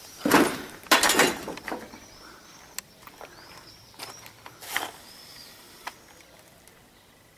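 Footsteps crunching over rubble and broken glass: two loud crunches in the first second and a half, then fainter scrapes and clinks. Small birds chirp now and then in the background.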